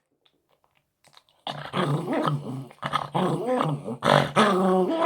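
Papillon dog grumbling: after about a second and a half of quiet, a long run of growls and whiny, wavering vocal noises, a show of temper.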